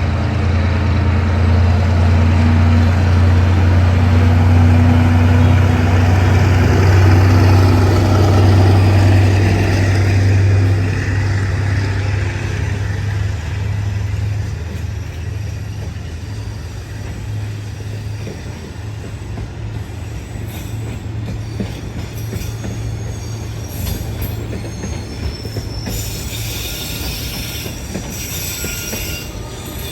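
Diesel-hauled passenger train pulling out: the locomotive's engine runs loud with a steady low note for about ten seconds, then fades as it moves away, leaving the carriages rolling past with high-pitched wheel squeal near the end.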